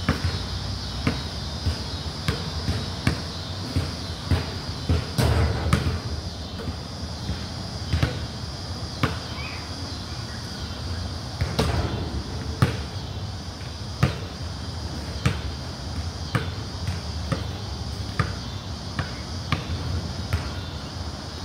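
Basketball bouncing on a concrete court, dribbled in short runs of sharp bounces about once or twice a second.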